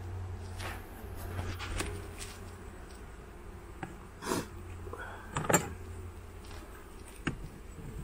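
Wooden bee frames being handled in a plastic nuc box: a few short knocks and scrapes, the loudest about five and a half seconds in, over a low hum of honeybees.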